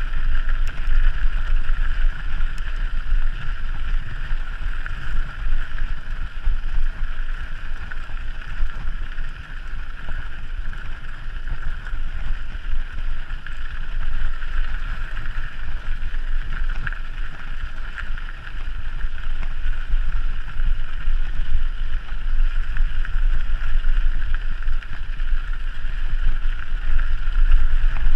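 Wind buffeting the microphone of a camera riding along on a mountain bike, a constant rumble, over a steady hiss.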